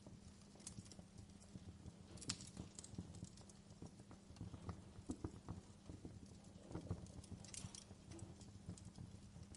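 Faint crackling of a wood fire: irregular snaps and pops over a low steady rumble.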